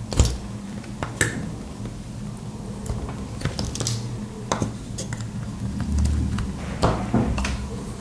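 Plastic RJ45 Ethernet coupler adapter being handled and worked on with small tools: scattered sharp clicks and brief scrapes, the loudest just after the start, over a steady low hum.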